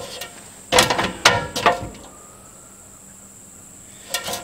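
A few sharp clunks and rattles of tools being handled as an orange mallet is picked up from beside the ladder, with a couple more knocks near the end.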